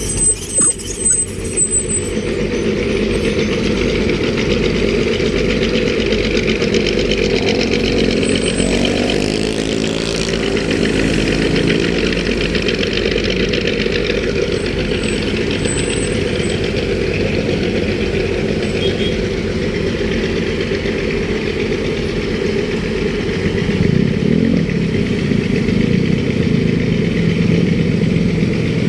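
City street traffic: engines running steadily, with motor vehicles passing, one about nine seconds in and another, louder, near the end.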